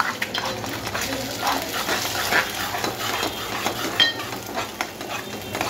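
Egg with green chillies sizzling in hot oil in a metal pot while a spatula scrapes and breaks it up, in quick repeated strokes against the pot. One brief metallic clink about four seconds in.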